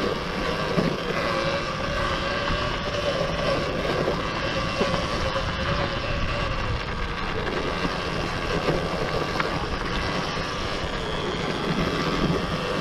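Steady drone of an electric enduro motorcycle on the move: wind rushing over the microphone with a faint wavering motor whine.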